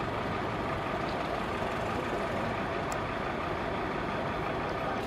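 A vehicle engine idling steadily, an even rumble that does not change, with one faint click about three seconds in.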